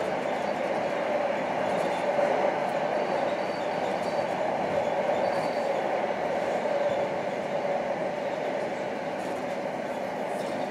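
Steady running noise of a TTC streetcar heard from inside the passenger cabin: wheels rumbling on the rails with the hum of the car's drive. About three and five seconds in, a faint brief high squeal comes from the wheels.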